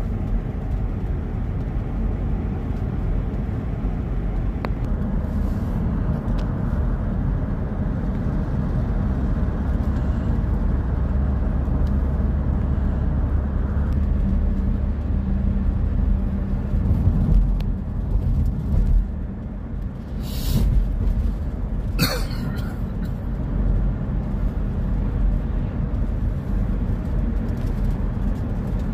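Steady road and engine rumble of a car driving, heard from inside the cabin, with two brief noises about two-thirds of the way through.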